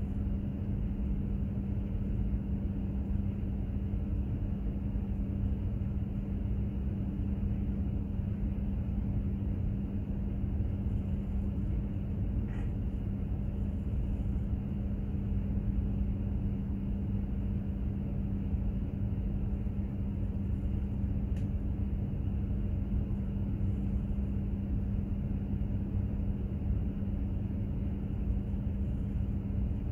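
Container ship under way: a steady low rumble with a constant hum from its engine machinery.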